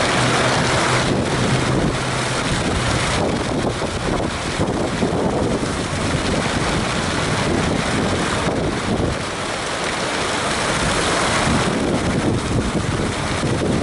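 Steady rushing noise of wind buffeting the microphone over the rippling water of a fountain pool, rising and falling a little in strength.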